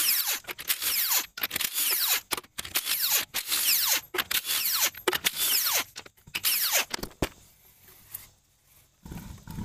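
Milwaukee M18 cordless impact wrench running in a series of short bursts, one lug nut after another, as it spins the lug nuts off a truck wheel. After about seven seconds the bursts stop.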